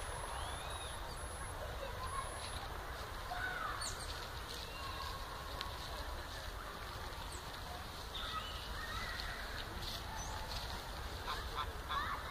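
Waterfowl calling now and then with short honks and quacks, over a steady low background noise.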